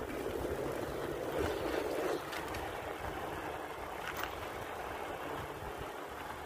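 A bike rolling along a wooden floating dock, giving a steady rolling noise with a couple of light knocks.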